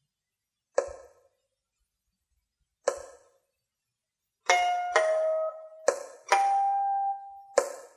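Pipa solo: single plucked notes ring out and fade, about two seconds apart. About halfway through, the plucks come faster, with held notes sounding between them.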